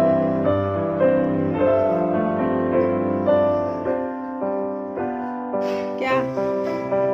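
Background piano music, slow and gentle, with notes struck about twice a second.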